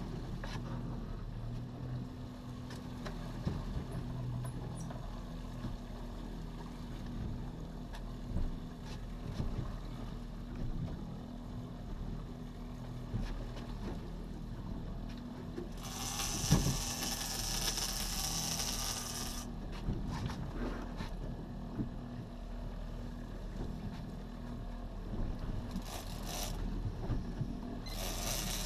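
A boat's outboard motor running steadily at low speed while a big-game fishing reel is cranked against a hooked fish, its mechanism clicking. A hiss rises for about three seconds two thirds of the way through, and briefly again near the end.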